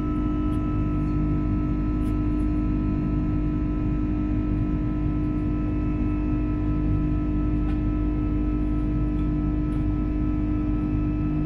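Rolls-Royce Trent 700 turbofans of an Airbus A330-300 at climb thrust, heard inside the cabin: a steady drone of several held tones over a low rumble.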